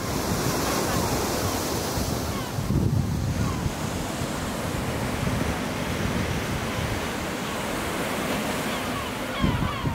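Sea waves breaking and washing over the rocks of a breakwater, a steady rush of surf, with wind buffeting the microphone in gusts.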